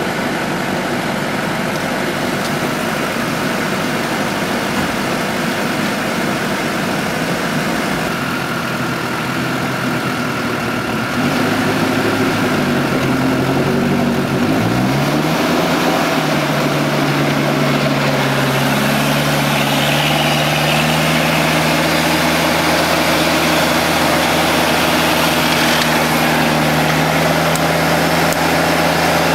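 Off-road vehicle engine running in mud. It idles at first, gets louder about a third of the way in, then the revs dip and climb and hold at a steady higher speed for the rest.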